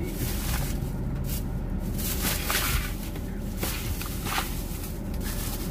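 Intermittent rustling and crinkling as newly bought pens in their packaging are handled and pulled out, over a steady low hum inside a parked car.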